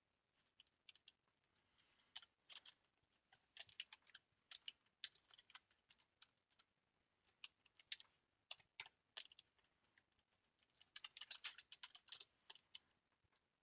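Faint computer keyboard typing: irregular keystroke clicks with short pauses between them, and a quick run of keystrokes about eleven seconds in.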